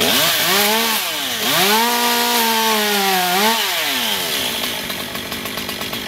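Chainsaw revved up briefly and let drop, then revved again and held at high speed for about two seconds before winding down.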